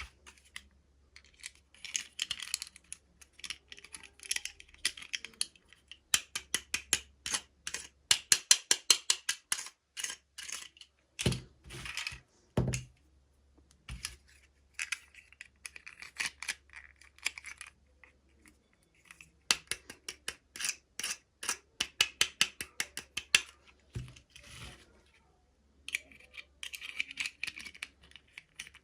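Hands unboxing small plastic toys: fast runs of small clicks and taps, with crinkling of plastic packaging. A few soft thumps come midway and again later.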